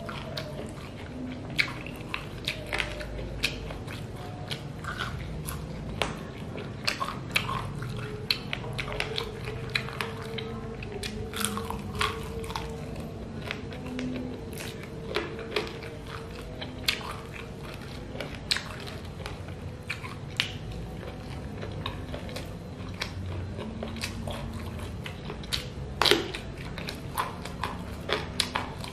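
Close-up eating sounds of a person eating chicken feet in red chili sauce with rice by hand: chewing and biting with many short, sharp mouth clicks and smacks.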